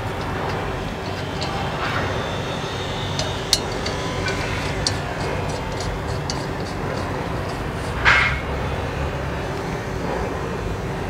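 Small metallic clicks and clinks of nuts and bolts being worked loose by hand on the cast bush-type hub of a straw reaper's thresher pulley, with one louder scrape about eight seconds in, over a steady low background rumble.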